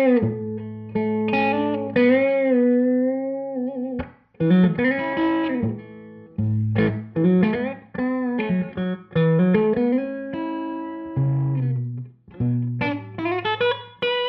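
Electric guitar played through a Tone King Gremlin tube amp on its rhythm channel: phrases of single notes and chords with string bends and vibrato, broken by short pauses.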